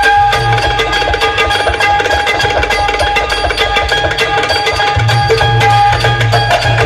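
Loud Indian music with fast, even tabla-like drumming and heavy bass, played through a large DJ speaker system during a sound check.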